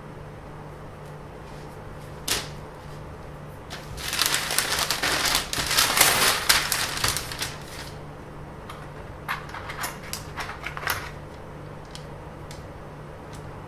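Handling noise: a single click, then several seconds of rustling and crinkling, then a quick run of small clicks and taps, over a steady low hum.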